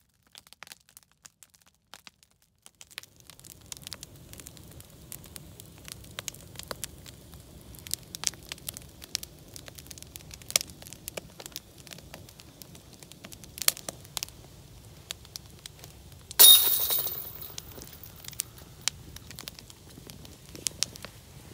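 Open fire crackling and popping over a low rumble. Over halfway through, a sudden loud burst of hiss fades away over a second or two.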